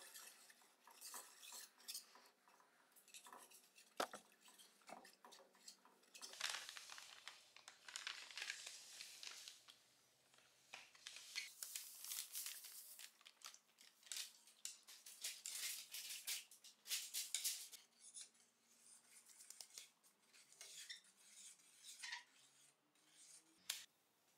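Faint clinks and scrapes of a metal stirring rod against a stainless steel stock pot, with dry hot-bluing salts poured from a plastic bag into the water in several rushes.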